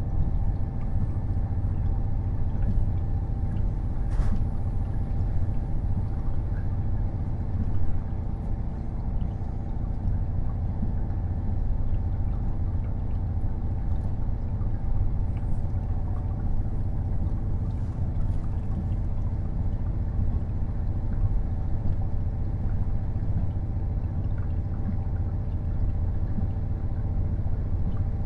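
KiHa 48 500-series diesel railcar heard from inside the car: a steady low rumble of its diesel engine and running gear, with a few faint clicks.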